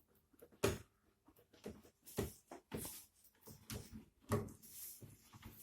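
Interior door lever handle being pressed and released several times, the latch clicking in and out with no squeak: handle and latch freshly lubricated with mineral-oil aerosol spray. A series of short clicks and knocks.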